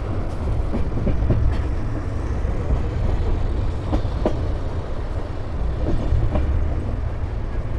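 Jan Shatabdi Express passenger train running along the track: a steady low rumble with scattered clicks and knocks from the wheels on the rails.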